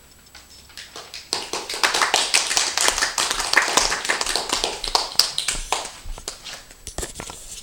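A small audience clapping: the applause starts about a second in, holds for a few seconds and thins out near the end.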